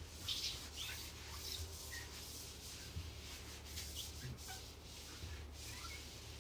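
Faint, intermittent rubbing and scuffing on the plastic laminate sheet, with a few small squeaks, as it is pressed down and worked into place over contact cement.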